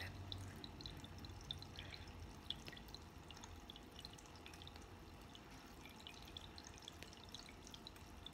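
Tabletop water fountain trickling faintly, with many small, irregular drips.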